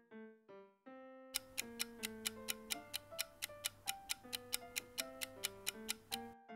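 Clock-like ticking sound effect, about four to five ticks a second, for a countdown timer, over light piano background music. The ticking starts about a second and a half in and stops just before the end, while the piano carries on.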